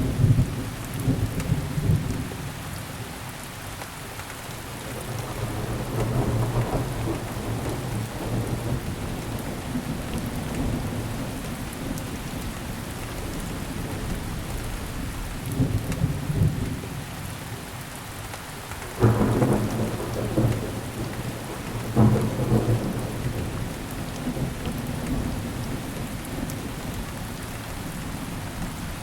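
Steady rain falling, with several low rolls of thunder. The loudest two break in suddenly about two-thirds of the way through, a few seconds apart.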